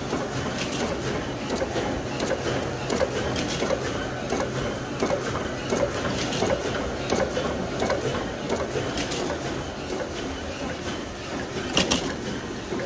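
Shiki 30MDFU flatbed roll-to-roll foil label printing press running steadily, a continuous mechanical noise with many quick clicks from its moving parts, and a couple of sharper clicks near the end.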